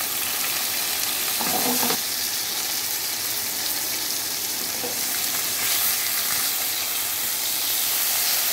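Beef seekh kebabs sizzling steadily in hot oil in a frying pan, the already half-cooked kebabs being browned.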